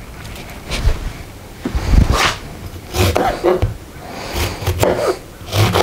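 Kitchen handling on a plastic cutting board: several knocks as things are set down, the loudest about two seconds in, then a knife cutting through a lemon onto the board.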